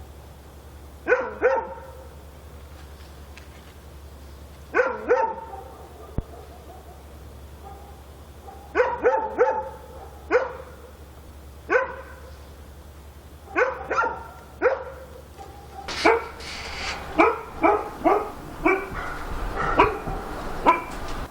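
A dog barking in short bursts of one to four barks with pauses between them. The barks come more often in the second half, over a steady low hum.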